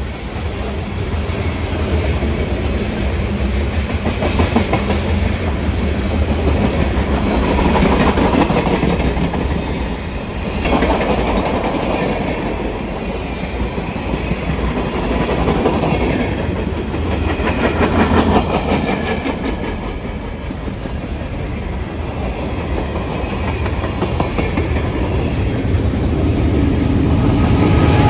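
A train rolling past on the tracks, its wheels clacking rhythmically over the rail joints, with a steady low rumble underneath that swells and eases several times.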